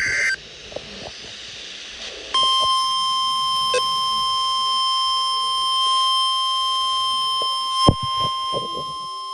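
Emergency Alert System audio: the end of a SAME header data burst at the very start, then, about two and a half seconds in, the National Weather Service's steady single-pitch 1050 Hz warning alarm tone, held for about five and a half seconds and ending with a click.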